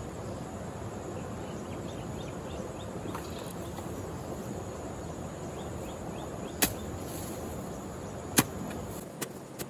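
Long-handled digging hoe striking into damp soil: two sharp strikes in the second half, the second the loudest, then a couple of lighter knocks, over steady background noise.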